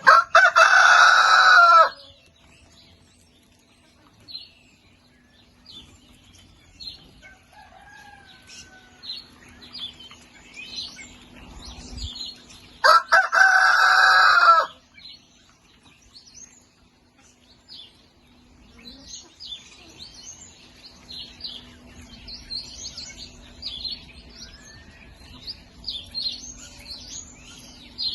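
Rooster crowing twice, at the start and again about 13 seconds later, each crow about two seconds long. Between the crows, the flock makes soft chirps and clucks.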